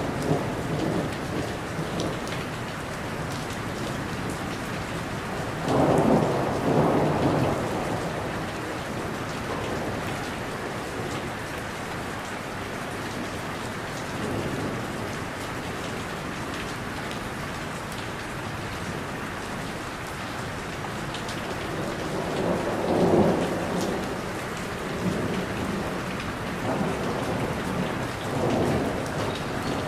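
Steady rain falling on tree leaves, with thunder rumbling up louder twice, about six seconds in and again about twenty-three seconds in.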